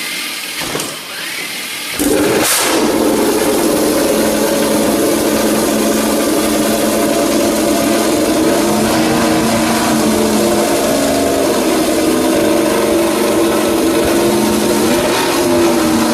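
MotoGP racing motorcycle engine fired up about two seconds in, then running loud and steady through its open exhaust at a held, slightly wavering engine speed.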